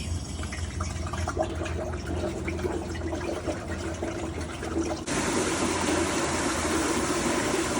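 Refrigerant bled from an overcharged heat pump's low-pressure side, bubbling and gurgling through a bucket of water. About five seconds in it turns abruptly into a louder, steady rush.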